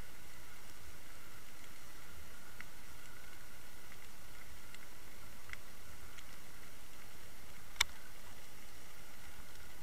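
Steady underwater hiss recorded by a Water Wolf fishing-line camera as it moves through the water, with a few faint scattered clicks. One sharp click comes about eight seconds in.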